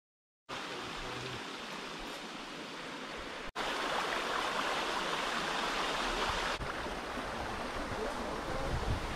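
Steady rushing of flowing stream water, starting abruptly after half a second of silence, with sudden jumps in level about three and a half and six and a half seconds in.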